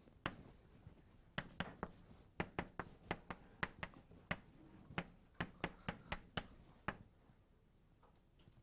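Chalk writing on a blackboard: a quick, irregular run of sharp chalk taps and clicks as the letters are written, stopping near the end.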